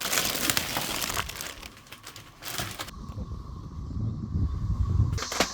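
Crinkling and rustling handling noise in two spells, the first about a second long and a shorter one about two and a half seconds in, followed by low rumbling.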